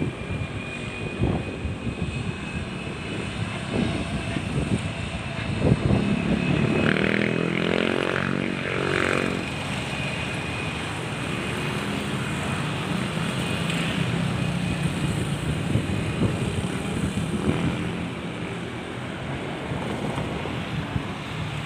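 Airplane engines passing by: a low rumble with a thin, slowly falling high whine over it, swelling to loudest about six to nine seconds in as the plane goes past, then settling into a steady rumble.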